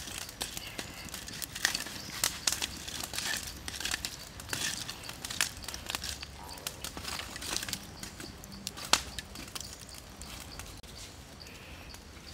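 Charcoal fire crackling under a spit-roasting chicken, with irregular clicks and scrapes as a bamboo stick pokes and shifts the burning coals; one sharp snap about nine seconds in.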